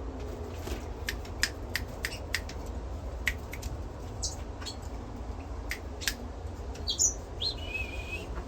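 Small cage finches and canaries chirping: quick sharp chips scattered through, a few brief high whistled notes, and one held note near the end, over a steady low hum.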